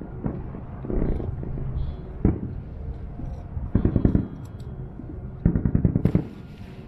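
Aerial fireworks bursting at a distance: four clusters of booms and rapid crackling, with a short hiss after the last cluster.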